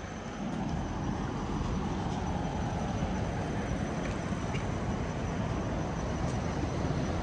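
Steady rumble of vehicle traffic, rising a little in the first second and then holding level.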